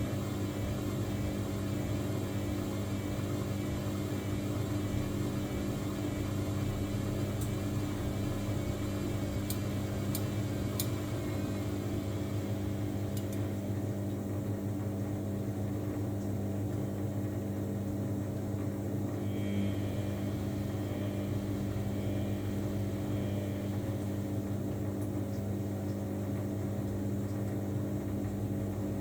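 Samsung washing machine running with a steady, even hum. Three light clicks come about ten seconds in.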